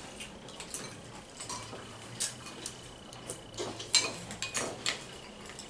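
Spoons clinking against cereal bowls as people eat cereal, a scatter of light clinks and taps, a few of them sharper about four seconds in.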